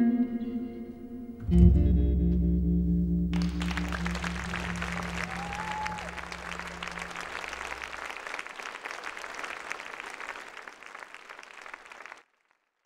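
Guitar music ends on a final low chord that rings out and fades. Audience applause starts about three seconds in and continues until the sound cuts off near the end.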